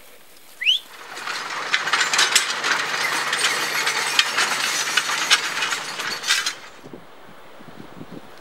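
A short rising whistle-like call, then a loud, dense rattling clatter of rapid clicks over a steady low hum, which cuts off suddenly near the end.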